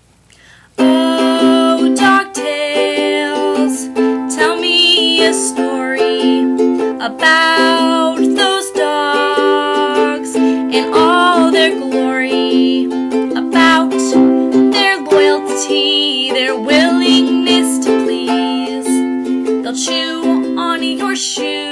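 Ukulele playing chords, starting about a second in.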